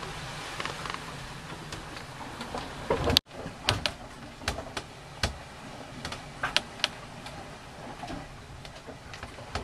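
Sailboat cabin underway, creaking and clicking with scattered sharp knocks over a steady hiss of wind and water. A louder knock comes about three seconds in, and the sound cuts out for an instant just after it.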